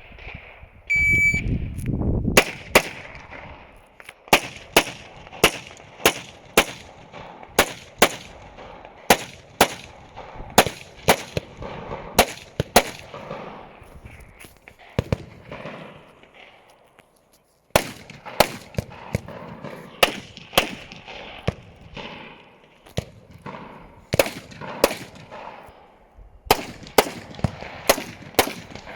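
An electronic shot timer gives one short beep, then a long string of gunshots follows, fired in quick pairs and short runs with brief pauses between. The shooting stops for a couple of seconds a little after the middle, then starts again.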